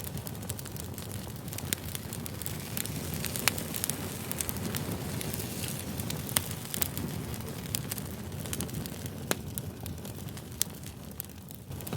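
Wood fire burning, with a steady low rush of flames and frequent sharp crackles and pops from the burning wood, one especially loud pop about three and a half seconds in.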